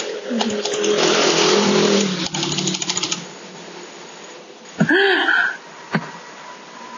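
Rustling with a run of rapid clicks, thickest between two and three seconds in. About five seconds in comes a short tone that rises and then falls, followed by a single click.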